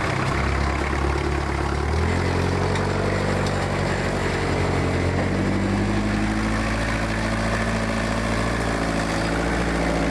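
Engine of a homemade hydraulic-drive wheel loader running as the loader drives. It speeds up about two seconds in, then runs steadily.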